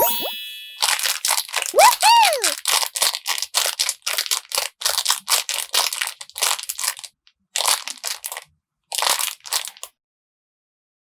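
Paper being squeezed and crinkled in quick, repeated crunchy strokes, several a second. The strokes break into two shorter bouts and stop about a second before the end. A cheerful 'woohoo!' sounds about two seconds in.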